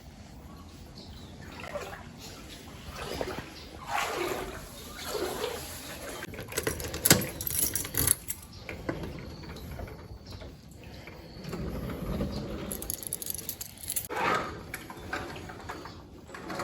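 Water sloshing and splashing in irregular surges, with a sharp knock about seven seconds in.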